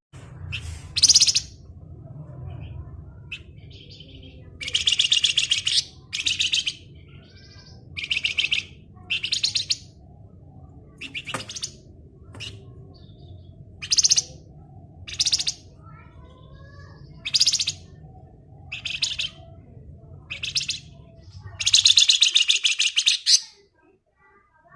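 A Flamboyan songbird (the Indonesian bird-keepers' name) in its 'ngebren' song: about a dozen short, fast, rattling high trills, the longest near the end. A low background rumble runs under them and stops shortly before the last trill ends.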